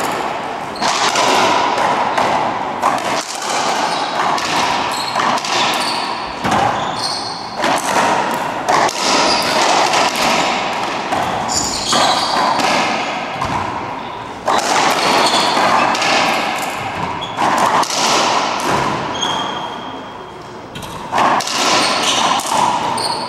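Racquetball rally: repeated sharp cracks of the ball striking racquets and the court walls, each ringing in the enclosed court. Sneakers squeak briefly on the hardwood floor.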